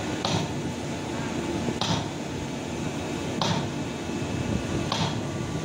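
Hitachi EX1200 excavator's diesel engine and hydraulics running steadily as the arm is positioned, with a short hiss repeating about every second and a half.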